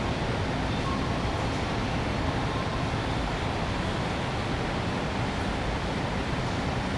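Steady city traffic noise, a constant low rumble of road vehicles with no single event standing out.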